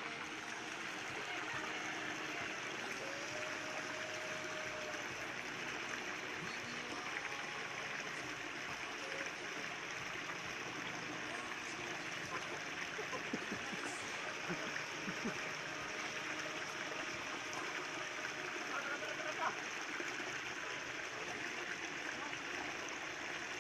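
Steady rushing noise with no clear pitch, with a few faint short ticks scattered through it.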